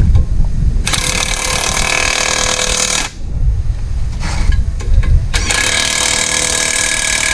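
Impact wrench hammering in two bursts of about two seconds each, the second starting a couple of seconds after the first ends, with wind rumbling on the microphone underneath.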